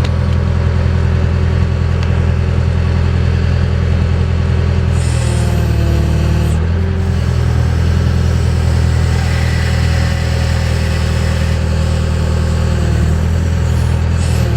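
JCB backhoe's diesel engine running steadily, with a brief change in its tone about five seconds in.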